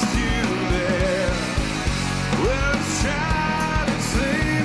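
Rock band playing live: a male voice sings gliding, held notes into a handheld microphone over drums, bass guitar and electric guitars, with a steady drum beat.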